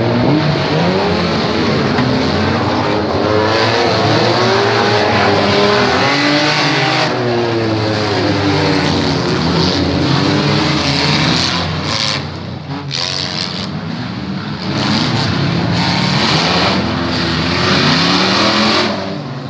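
Several demolition-derby car engines revving hard and easing off over and over, their pitches rising and falling against one another over a haze of tyre and engine noise.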